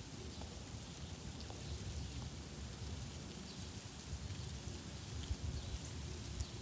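Faint scattered ticking and crackling of ice in ice-glazed trees and brush, over wind rumbling on the microphone.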